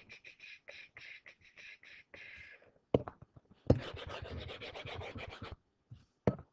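Pen or stylus strokes scratching on a writing surface: a run of short strokes, a sharp click about three seconds in, then about two seconds of rapid back-and-forth rubbing as the sketched graph axes are erased.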